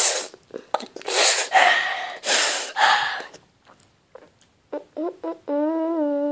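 A child makes a few short, breathy huffs. Near the end she starts humming one long, steady note.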